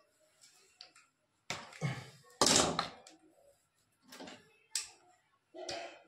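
Pliers at the wiring of a refrigerator compressor: about five short, sharp clicks and knocks as the capacitor wires are cut and handled, the loudest a little over two seconds in.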